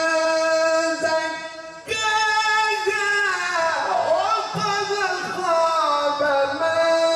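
A man reciting the Quran in a melodic, sung style. He holds long notes, breaks off briefly about two seconds in, then sings a long ornamented phrase that slides down in pitch before settling on another held note.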